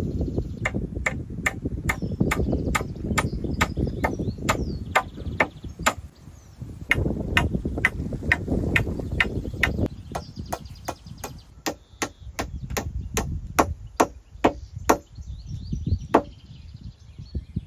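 A hand tool striking wood in a quick, steady rhythm of about three sharp blows a second, typical of chopping during shelter building. A low rustling noise lies under the blows through the first ten seconds, and the blows pause briefly and come more sparsely in the second half.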